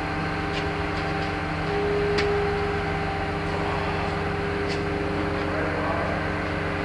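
Engine idling with a steady hum, a higher whine joining about two seconds in, and a few faint clicks.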